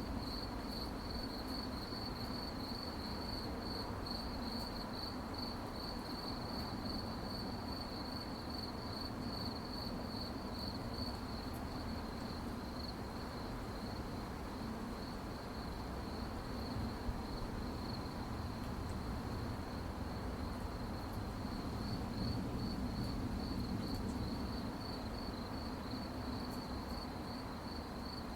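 Crickets chirping at night, a steady high pulsing trill that goes on without a break, over a low background hum.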